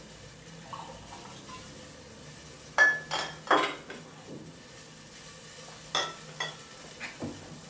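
Kitchenware clinking: three sharp clinks close together about three seconds in, the first ringing briefly, and three lighter ones near the end, over a faint steady hiss from a pot of broth heating on the stove.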